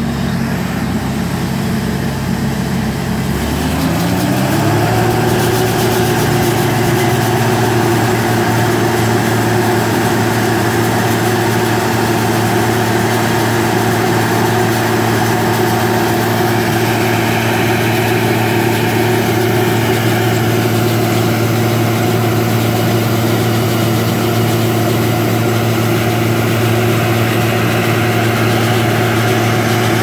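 Heavy diesel farm machinery engine running steadily under harvest load. About four seconds in its speed rises, and it then holds at the higher speed.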